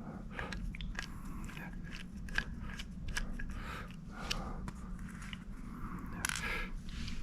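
Irregular small clicks and ticks of a screwdriver and small screws against the metal parts of an opened external hard drive during reassembly, with a short scraping rustle about six seconds in, over a steady low hum.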